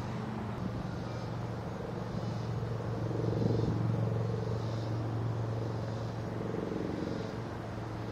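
A motor running steadily with a low hum, swelling slightly in loudness around the middle.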